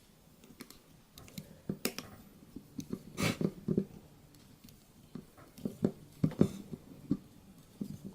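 A screw being turned in by hand with a multi-tool's Phillips screwdriver: irregular clicks, scrapes and small knocks as the tool bites and is repositioned, in small clusters with short pauses.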